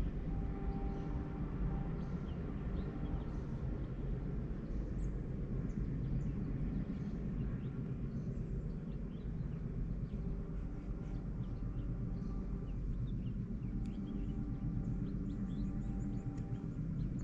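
Small birds chirping on and off over a steady low rumble, with faint held tones that come and go.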